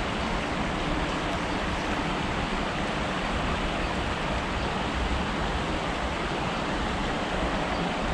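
Steady, even rushing of shallow river water flowing around the angler.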